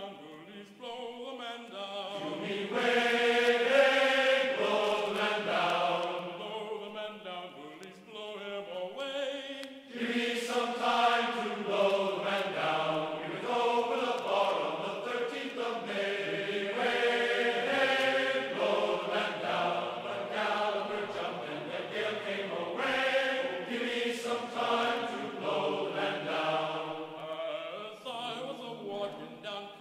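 Background music of choral chanting voices, with sustained sung notes throughout.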